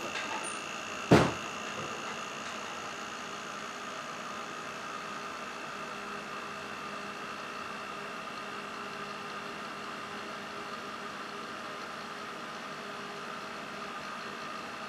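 Small hermetic refrigerator-type compressor running steadily with a hum and a faint high tone, pumping high-pressure air into a sealed wine bottle. One sharp knock about a second in.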